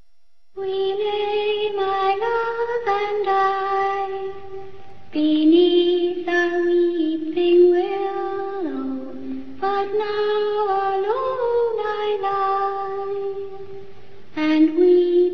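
Soundtrack music: a high voice slowly singing a wordless, lullaby-like melody of long held notes that step and glide between pitches.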